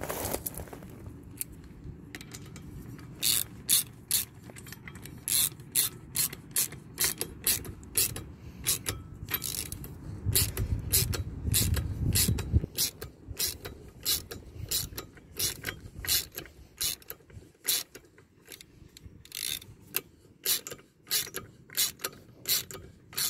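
Hand ratchet with a socket on an extension clicking as it tightens the bolt of a new prop-shaft anode on the outdrive, sharp clicks coming a few a second in uneven runs. A low rumble joins in about ten seconds in and stops about two seconds later.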